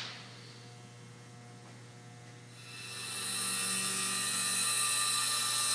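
Small electric motors of motorized saddlebag lid hinges whining steadily as they power the lids open, starting about two and a half seconds in. A low steady hum lies underneath throughout.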